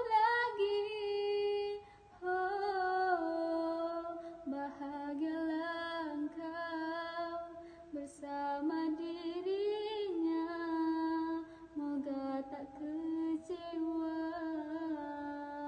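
A young woman singing solo into a handheld microphone, holding long notes with short breaks between phrases.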